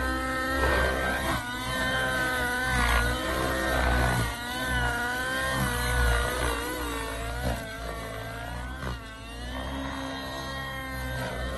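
Nitro engine of a Tron 700 Nitro radio-controlled helicopter running, its pitch rising and falling again and again as the throttle and load change.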